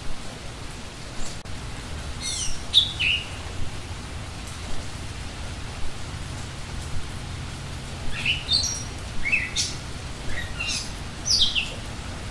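Wild songbirds in the forest canopy calling in quick, falling chirps, one run about two seconds in and another from about eight seconds, over a steady low rumble of background noise.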